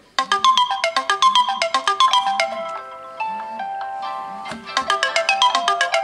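Two Samsung Android phone alarms, on a Galaxy A3 and a Galaxy S4 mini, ringing together with quick, bright melodic tones. The sound starts suddenly just after the start, and the melodies overlap more thickly from a little past the middle.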